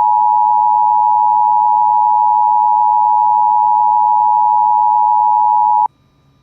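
Emergency Alert System attention signal: a loud, steady two-tone alarm sounding the start of a severe thunderstorm warning. It cuts off abruptly near the end.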